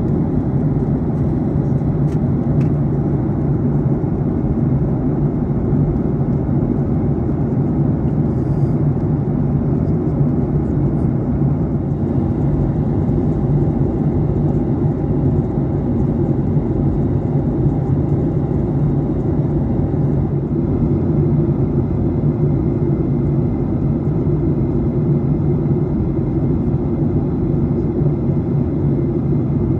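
Steady cabin noise of a Boeing 737-800 flying at altitude, heard inside the cabin: an even, unchanging rumble of airflow and its CFM56-7B engines.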